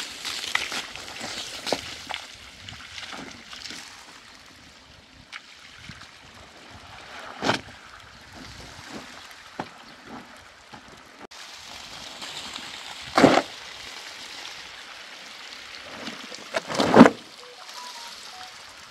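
Water sloshing and trickling as laundry is washed, with three louder sudden sounds, the loudest near the end.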